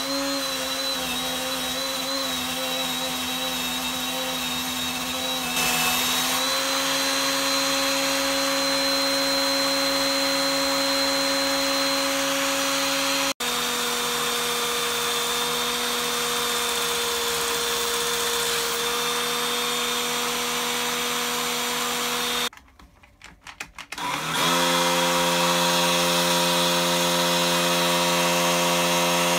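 Cordless drill held in a vise running steadily, spinning a wire wheel brush against a rusty ratchet screwdriver's spiral shaft and small steel parts to strip the rust. The running cuts out for a second or so about two-thirds through, then picks up again at a slightly different pitch.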